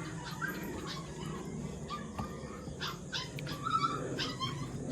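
Short high-pitched animal calls, several of them in the second half, like a dog whimpering and yipping.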